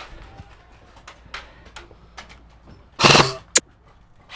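Scattered single airsoft shots and snapping BB hits, then about three seconds in a loud bang from an airsoft grenade going off, followed by one more sharp crack.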